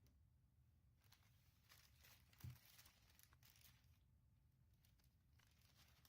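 Near silence, with a few faint rustles and one soft low bump about two and a half seconds in.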